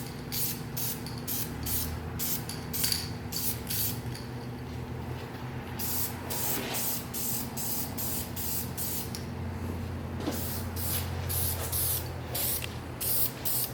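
Paint spraying onto an engine block in short hissing bursts, some quick and some held for a second or more: light coats of Ford blue being built up. A low steady hum runs underneath.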